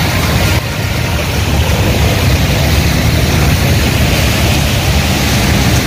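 Traffic on a rain-flooded street: motorbike and auto-rickshaw engines running with a steady low rumble, over a continuous hiss of rain and tyres splashing through the water.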